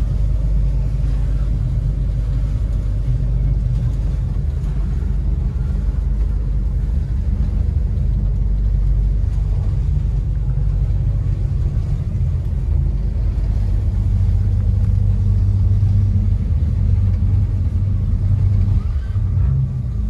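Twin Yamaha 250 hp outboard engines running at low power as a steady low rumble, heard from inside the boat's cabin, while the joystick spins the boat in its own circle. The rumble grows a little fuller in the second half.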